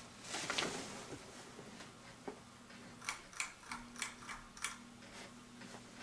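Ceiling fan running, its motor giving a steady low hum under a soft airy hiss, with a brief rush of noise about half a second in. About three seconds in comes a quick run of eight or so light clicking ticks over a second and a half.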